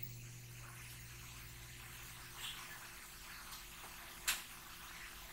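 Faint room tone: a steady low hum and hiss, with two brief faint high ticks about two and a half and four seconds in.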